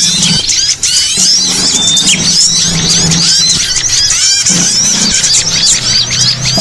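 Bird-luring recording: a dense chorus of many small songbirds chirping and twittering over one another in quick, high, rising and falling notes, with a low steady hum underneath.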